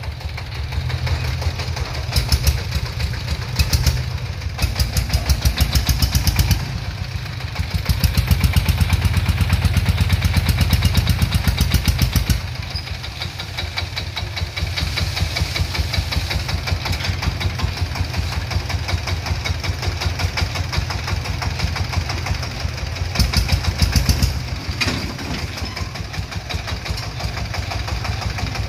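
Single-cylinder diesel engine of a three-wheeled tractor dump truck running with a rapid, even knocking beat. It rises in level twice in the first half and once briefly near the end, settling back to a lower, steady run between.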